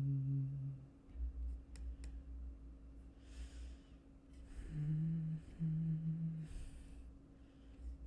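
A man humming a slow tune in low, held notes, once at the start and again about five seconds in, with breaths in between. Two faint clicks come about two seconds in.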